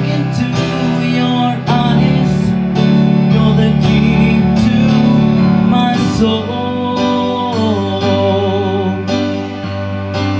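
Song played on a Roland XP-60 synthesizer keyboard: sustained chords over a steady low bass, with a man singing a held, gliding line over it near the middle.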